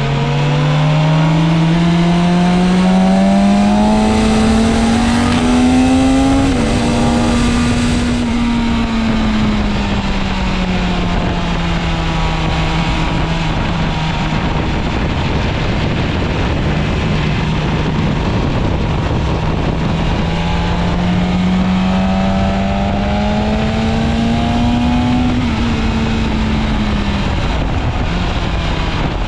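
BMW S1000RR sport bike's inline-four engine heard from on board over a steady rush of wind. The revs climb for about six seconds, step down sharply at a gear change, fall away and hold steady, then climb again and drop off near the end.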